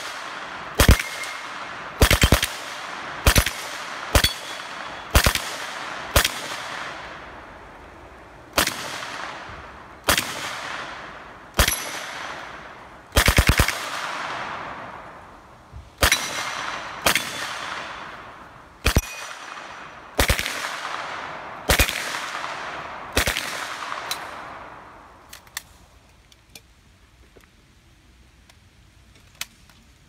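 Submachine gun fired in short bursts of two to four shots, about seventeen bursts roughly a second or two apart, each followed by a long echo. The firing stops a few seconds before the end, leaving a few faint clicks.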